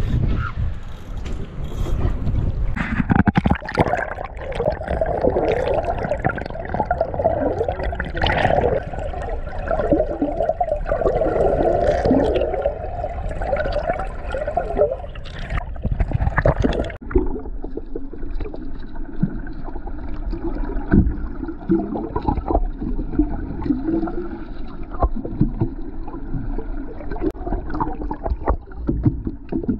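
Water gurgling and sloshing around an action camera held under the sea surface beside a boat, over the steady low rumble of the boat's outboard motor. About 17 seconds in the sound suddenly turns duller, its hiss gone.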